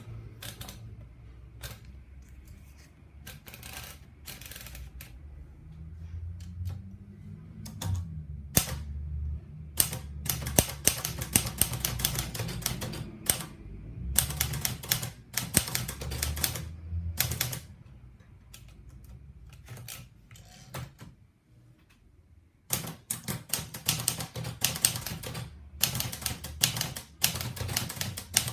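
Olivetti Lettera 35 manual portable typewriter being typed on: irregular key strikes, slow and sparse at first, then quicker runs of keystrokes, with a short pause about three quarters of the way through.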